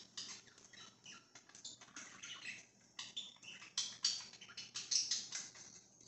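A flock of budgerigars chattering: many quick overlapping chirps and warbles from several birds, busiest in the middle, over a faint steady hum.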